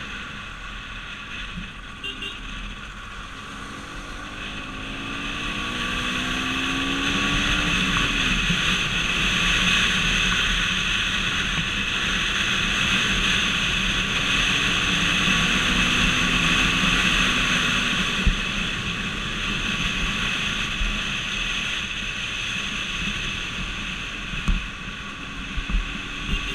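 Road noise from a vehicle driving on the expressway: steady tyre and wind noise that builds over the first ten seconds. Under it a pitched engine hum rises and then drops away about eight seconds in, and a few light knocks come near the end.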